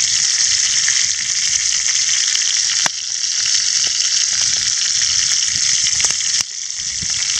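Bacon strips, grouse hearts and gizzards sizzling in a cast-iron skillet: a steady, dense hiss of frying fat with small pops. The sound drops abruptly twice, about three seconds in and again about six and a half seconds in.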